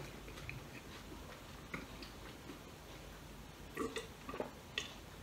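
Faint clicks and mouth sounds of a person eating, then a few louder gulps near the end as he drinks from a glass pitcher.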